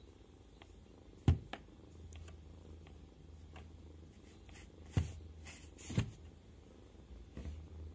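A kitten purring in a steady low rumble, broken by three sharp knocks, one about a second in and two a second apart later on, which are the loudest sounds.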